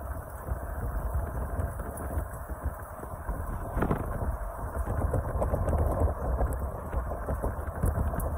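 A motor vehicle's engine running steadily, with wind buffeting the microphone, and a brief knock about four seconds in.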